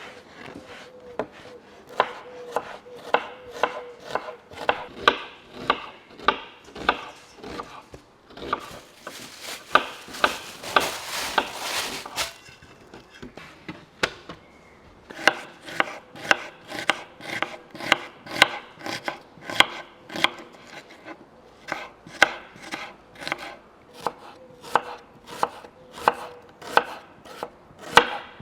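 Repeated sharp knocks at a steady pace, about two a second. In the middle there is a few-second stretch of hissing noise, then a brief lull before the knocks start again.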